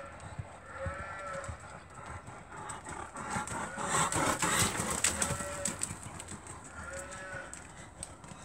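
A horse's hooves on a rubber-crumb arena surface, loudest as the horse passes close by about four seconds in, with short muffled thuds and scuffs. A short pitched call that rises and falls repeats about every one to two seconds through it.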